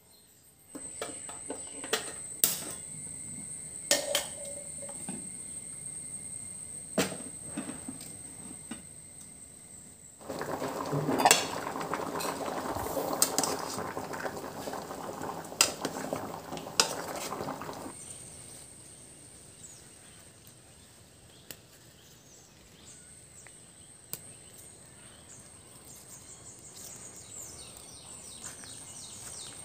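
A metal spoon clinking against an aluminium pot of cut tapioca pieces as salt is spooned in. About ten seconds in, the tapioca bubbles at a boil in the pot on a gas stove, with a few more clinks, for around eight seconds. Then a quieter hush with faint rapid chirping near the end.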